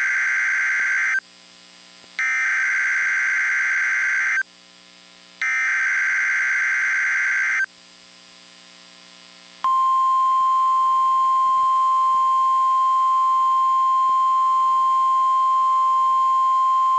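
Emergency Alert System SAME header on NOAA Weather Radio: three harsh digital data bursts of about two seconds each, a second apart, the first already under way, encoding a Child Abduction Emergency (AMBER Alert). About ten seconds in, the steady single-pitch 1050 Hz NOAA Weather Radio warning alarm tone starts and holds.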